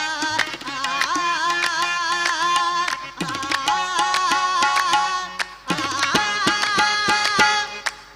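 Qawwali music: a harmonium and a male voice carry the melody over quick tabla strokes. The music drops back briefly about three seconds in and again near five and a half seconds, and each time comes back in with a low sliding drum note.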